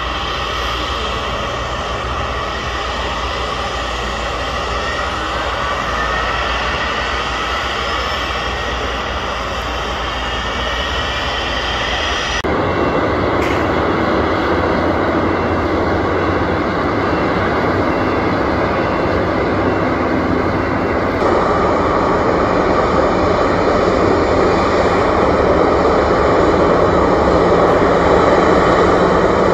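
Twin jet engines of a Boeing 737 running at low power on the ground: a steady whine over a low hum that grows gradually louder as the airliner moves off and taxis past. The sound changes suddenly about twelve seconds in and again about twenty-one seconds in.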